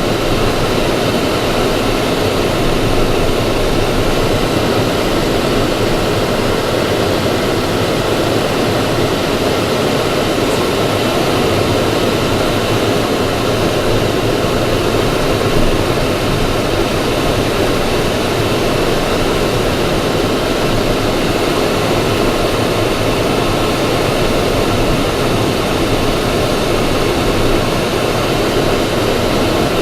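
Steady rumble and rush of a vehicle's cabin while driving on snowy roads: engine and road noise holding level, with no breaks.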